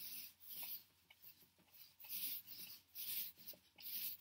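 Dry-wipe marker writing on a whiteboard: a run of short, hissy strokes in quick, uneven succession as the letters are drawn.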